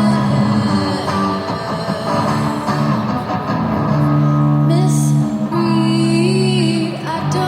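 Live pop ballad with held guitar chords, and a woman's voice singing over them in the second half.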